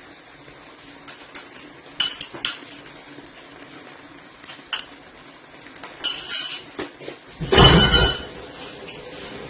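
Metal utensils clinking against cookware: scattered light clinks, then a louder metallic clatter that rings briefly near the end.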